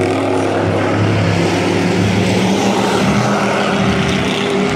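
Several dirt-track race pickup trucks' engines running at speed on the oval: a steady, loud drone of overlapping engines whose pitch drifts slightly as the trucks move around the track.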